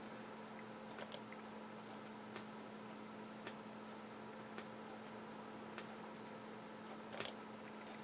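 Quiet room tone: a steady low hum with faint, evenly spaced ticks a little more than once a second, and a couple of slightly louder double clicks about a second in and near the end.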